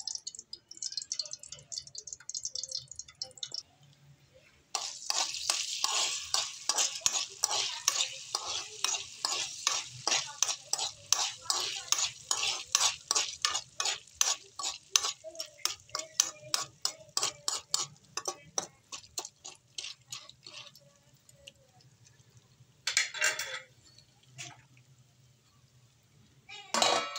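A metal spoon stirring popcorn kernels in hot oil in a steel pot, scraping and rattling against the pot bottom about three to four times a second, then dying away; before the stirring there is a light hiss of oil, and near the end there are two short clatters.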